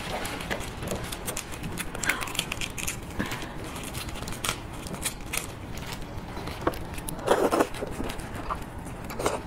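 Close-up eating sounds of raw marinated shrimp: wet clicks and crackles as the shells are pulled apart by gloved fingers, then sucking and chewing of the meat. A louder slurp comes about three-quarters of the way through.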